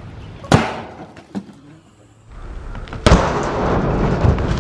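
Sledgehammer smashing a watermelon on a board atop a steel drum: a sharp hit about half a second in and another about three seconds in, the second followed by a noisy stretch of splattering and thuds.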